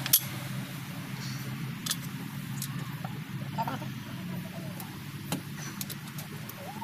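Hand tools clicking and tapping against metal engine parts: a few sharp, separate clicks spread out over a steady low hum.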